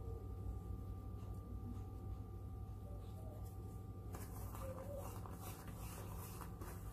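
Shredded cheese being scattered by hand over eggs in a skillet: faint light rustling and crackles starting about four seconds in, over a steady low hum.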